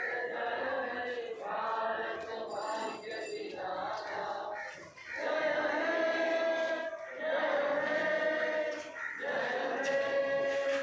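A group of men and women singing together in chorus, with long held notes and short breaks between phrases.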